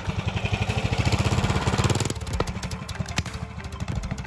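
Predator 301 cc single-cylinder four-stroke engine on a mini trike running hard as the trike drives past. It gets louder to a peak a second or two in, then drops off as it pulls away.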